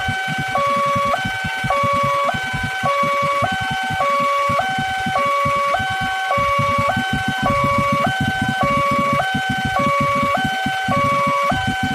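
Railway level-crossing warning alarm sounding its electronic two-tone signal, switching between a higher and a lower pitch, each held a little over half a second: the warning that a train is approaching. A fluttering low rumble runs underneath.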